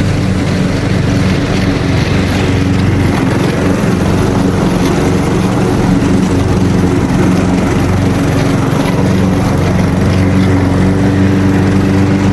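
Gas lawn mower engine running steadily while cutting thick, heavy grass.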